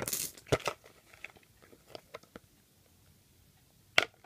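A hand rummaging among small stones in a plastic bucket. A short rustle of plastic comes first, then scattered clicks of stones knocking together, with a cluster of sharper clicks near the end.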